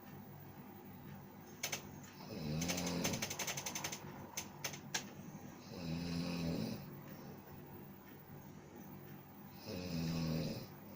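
A sleeping person snoring loudly: three rasping snores about a second long, one every three and a half to four seconds. The first has a rapid rattle, and a few sharp clicks follow it.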